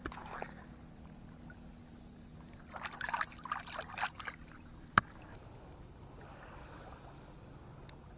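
A hand splashing in shallow pond water while releasing a bluegill: a short run of quick splashes about three seconds in. A single sharp click follows about five seconds in.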